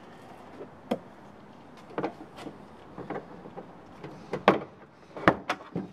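Plastic trim clips of a Toyota 4Runner's interior tailgate panel popping loose as the panel is pulled off by hand. About eight sharp snaps and knocks come at irregular intervals, the loudest in the last two seconds.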